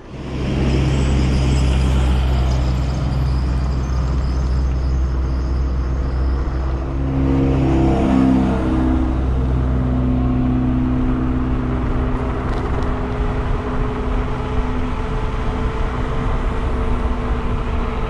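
Dual-motor electric scooter at speed, accelerating to about 30 mph. Wind buffeting the handlebar microphone and tyre roar make a loud, steady low rumble, with a thin whine from the hub motors rising slowly in pitch.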